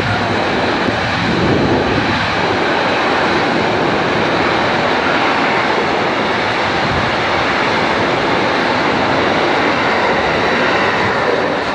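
Intermodal freight train wagons passing at speed close by: a steady, loud rolling rumble of steel wheels on rails that does not let up.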